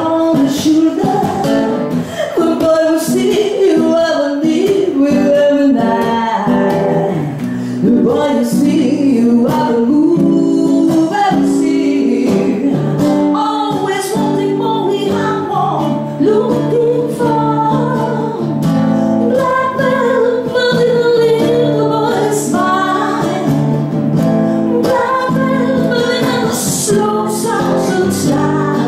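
A woman singing into a handheld microphone, accompanied by a man playing an acoustic guitar.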